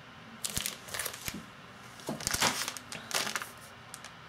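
Clear plastic pattern sleeves crinkling as they are handled and set down, in three bursts of rustling with a few light knocks.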